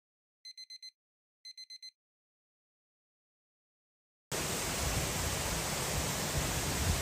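Two quick groups of four electronic alarm-style beeps, then silence; about four seconds in, steady rain noise starts suddenly.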